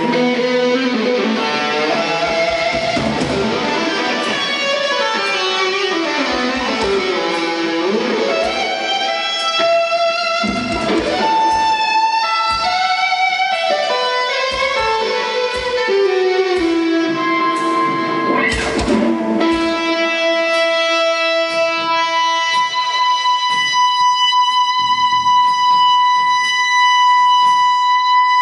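Amplified electric guitar playing a lead line, with pitch slides and falls, that settles into a long sustained high note near the end.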